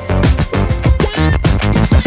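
Background music with a steady electronic beat and strong bass.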